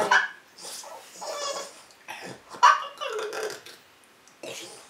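A pet dog whining and yelping three times.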